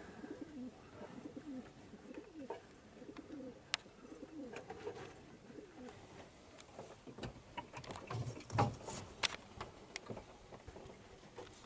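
Wood pigeons cooing softly, a low repeated coo, with a few sharp clicks and knocks, the loudest of them about three quarters of the way through.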